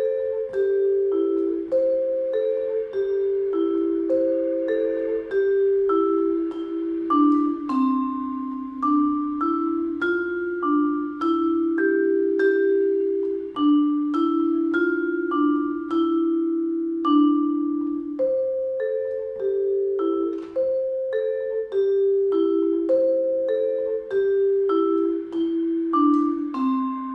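Majestic vibraphone played with four soft yarn mallets: a slow, continuous passage of struck notes and two- and three-note chords, each note ringing on after it is struck as the next ones come in.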